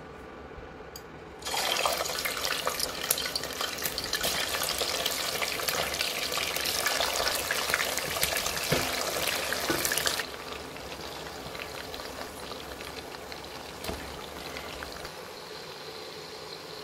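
Spice-coated chicken pieces frying in hot oil in a pot: a loud crackling sizzle begins about a second and a half in, then drops suddenly to a softer, steady sizzle about ten seconds in.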